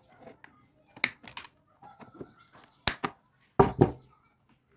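Side-cutting pliers snipping off the protruding ends of metal wire staples set into cracked plastic: a run of sharp clicks, a few about a second in, a pair near three seconds and a louder pair near four seconds.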